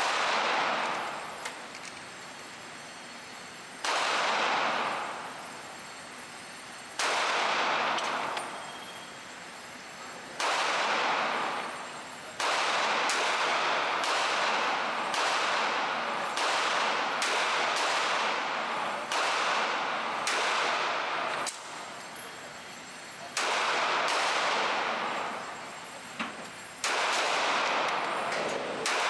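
Handgun shots at a shooting range, about twenty in all, each trailing off slowly. They come a few seconds apart at first, roughly one a second through the middle, then in a few spaced shots near the end.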